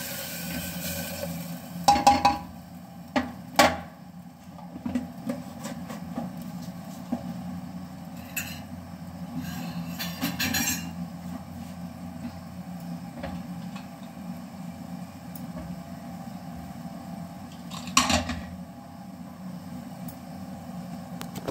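Kitchen utensils and containers being handled and set down: a few sharp clanks, loudest about two seconds in, again near four seconds and near the end, over a steady low hum.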